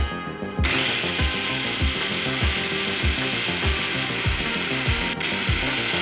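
Bosch 350 W hand blender on its chopper bowl running, with a steady whirr as it blends banana, egg and cocoa into batter. It switches on about half a second in and dips briefly near the end.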